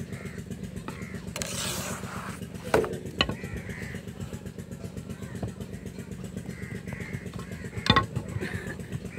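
A steady low engine-like drone with a fast pulse, joined by a brief hiss about a second and a half in and a few sharp knocks: two close together near three seconds in and a loud one near the end.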